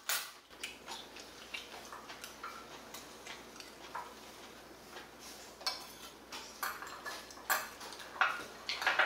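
Metal chopsticks and a spoon tapping and clinking against plates and bowls during a meal. The light clicks are scattered and come more often in the second half.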